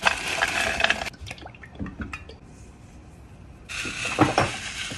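Frozen brussels sprouts tumble out of a plastic bag into a cast-iron skillet for about a second, followed by a few scattered taps. Near the end, an electric pepper grinder starts running.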